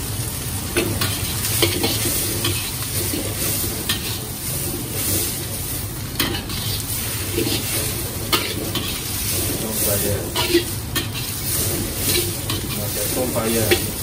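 Shredded cabbage and bell peppers sizzling in a hot wok while a metal wok spatula stirs and scrapes them, clinking against the pan in frequent short knocks.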